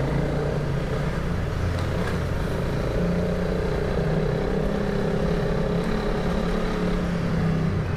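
Honda CRF300 Rally's single-cylinder four-stroke engine running under steady throttle as the bike rides through a railway tunnel, gently gaining speed. The engine note steps up a little about three seconds in.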